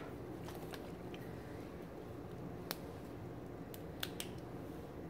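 A few faint, sparse clicks and light taps of a small facial-oil bottle and its packaging being handled, the sharpest nearly three seconds in and a quick group of three a little after four seconds, over a low steady room hum.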